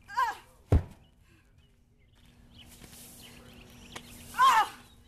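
A large tractor tire tipped over from upright lands flat on packed dirt with one heavy thud about a second in, just after a short yell. Near the end a second loud yell of effort comes as the tire is gripped to be flipped again.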